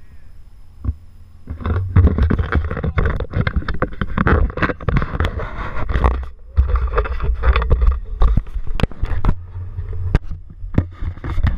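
Heavy wind buffeting on a camera microphone held outside a moving car: a low rumble with dense crackling. It sets in about a second and a half in and drops out briefly twice, at about six and ten seconds.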